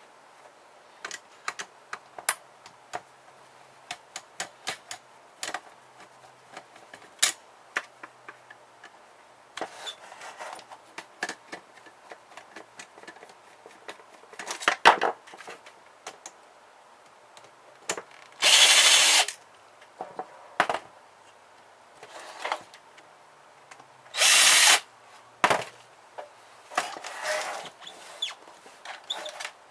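Small clicks and knocks of parts and screws being handled while a printer is taken apart, with two short runs of a power drill-driver about six seconds apart in the second half, backing out screws.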